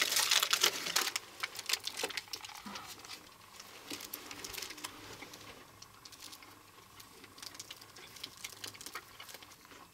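Plastic snack-pie wrapper crinkling as it is opened and handled, loudest in the first second or two, then fainter intermittent rustling.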